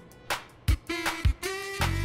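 Background music with a funk or soul feel: a sparse break with a few drum hits and short held notes, then the full backing with bass comes back in near the end.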